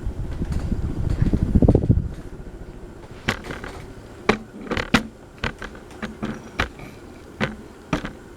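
Draught from a Hunter Westover ceiling fan running on high, buffeting the microphone with a low rumble that drops away about two seconds in. Then comes a run of about a dozen sharp, irregularly spaced clicks.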